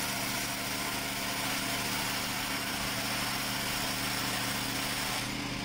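A motor running steadily, a constant engine drone with an even hum and hiss.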